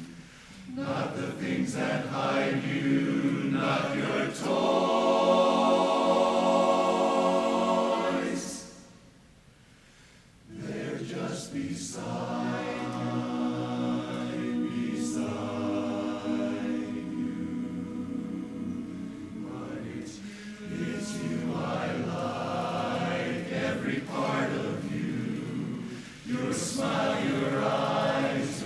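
Barbershop chorus singing a cappella in close four-part harmony, with a loud held chord about four seconds in. The chord ends just past eight seconds, followed by a pause of about two seconds before the voices come back in.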